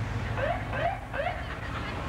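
Three quick rising siren chirps from an emergency vehicle, one after another, over the low steady rumble of slow-moving vehicles.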